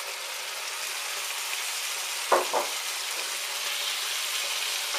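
Chicken livers frying in butter with chopped onion, a steady sizzle in the pan, stirred with a wooden spoon. One brief louder sound a little over two seconds in.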